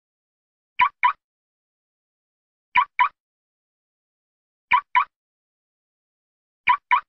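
Car locking chirp: two quick short beeps from the car as it locks with the remote, repeated four times at an even pace of about one pair every two seconds.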